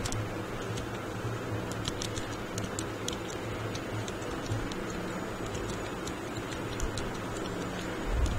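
Computer keyboard being typed on: a run of light, irregular key clicks, several a second, over a steady low hum.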